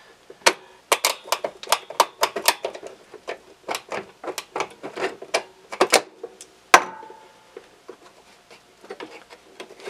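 Needle-nose pliers and small metal parts clicking and tapping as a tension washer is worked off the metal control rod of a Jeep CJ7 fresh-air intake housing: a rapid, irregular string of sharp clicks. About seven seconds in comes one louder metallic clink that rings briefly, followed by a few fainter ticks.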